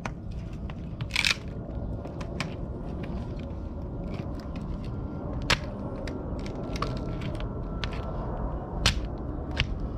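Axe chopping dry firewood logs: about five sharp strikes at irregular intervals, with the wood cracking and splintering, over a steady low rumble.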